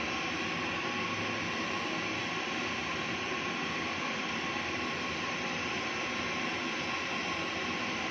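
Gas brazing torch flame burning steadily with an even, unbroken hissing roar, as the new charging valve is brazed onto the refrigerator's tubing.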